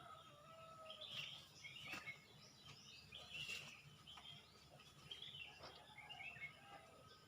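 Faint chorus of wild birds: many short chirps and whistles from several birds overlapping, over a low steady hum.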